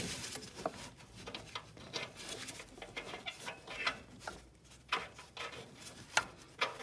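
Faint irregular metallic clicks and scrapes, several a second, as the upstream oxygen sensor is unthreaded by hand from the exhaust manifold, still hot.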